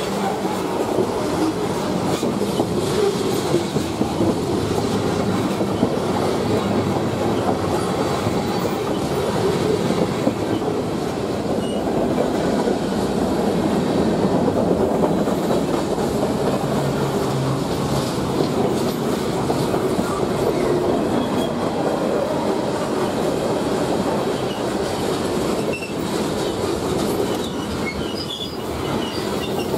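Freight train's tank cars and covered hoppers rolling past close by: a steady rumble and clatter of steel wheels on the rails.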